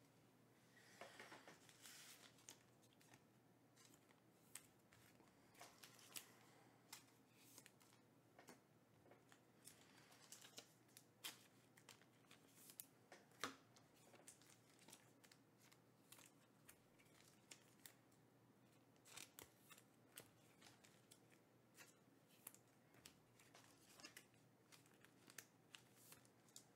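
Faint, irregular clicks and soft snaps of trading cards being handled and set down on a tabletop, with a brief rustle about a second in.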